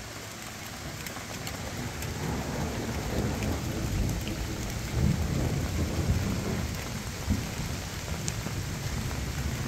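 Heavy rain falling steadily, with low rolling thunder through the middle.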